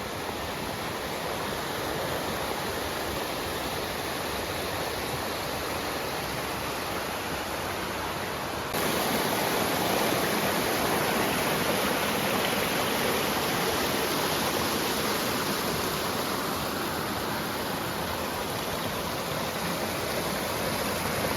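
Steady rushing of flowing creek water, even and unbroken, stepping suddenly louder about nine seconds in.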